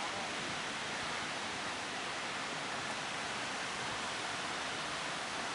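Steady rushing noise of wind and sea water around a small fishing boat in rough seas, even and unbroken.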